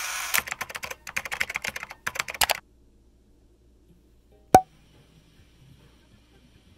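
A rapid run of crisp clicks like keys being typed lasts about two and a half seconds. About four and a half seconds in comes a single sharp click with a short ring.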